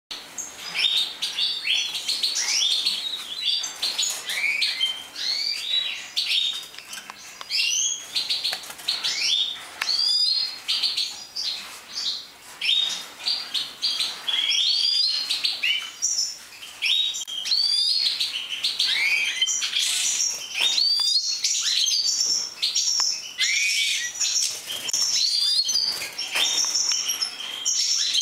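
Many caged European goldfinches of the large 'major' race chirping and singing together: a dense, continuous chorus of quick, overlapping twittering calls and song phrases.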